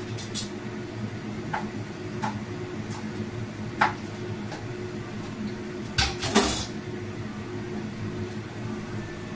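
Kitchen clatter: a few light clinks and knocks of utensils and dishes, the loudest pair about six seconds in, over a steady low hum.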